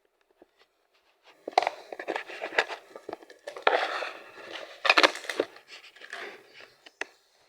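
Crinkling and rustling handling noise in irregular bursts, with a few sharp clicks, starting about a second and a half in.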